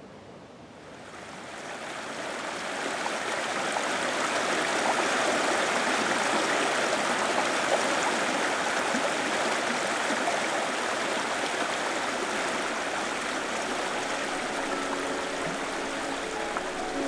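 Shallow brook rushing and splashing over rocks, a steady rush of water that fades in over the first couple of seconds.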